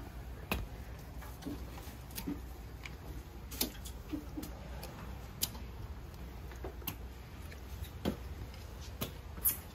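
Slow footsteps climbing a stairway, a sharp step or knock about once a second at an uneven pace, over a low steady rumble.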